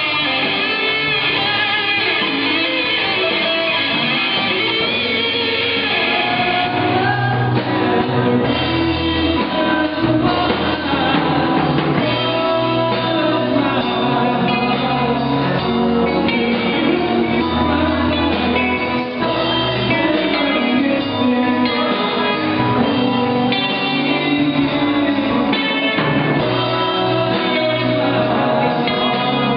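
Live band music with guitars to the fore. A high melodic line runs for the first several seconds, then the full band carries on with bass notes underneath.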